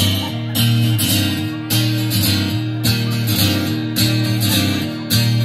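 Acoustic guitar strummed in a steady, even rhythm with no singing: an instrumental break between verses of a folk song.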